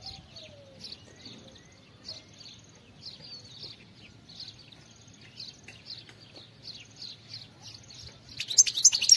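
European goldfinch singing: a steady run of short, high twittering notes, two or three a second, breaking into a much louder, fuller burst of song near the end.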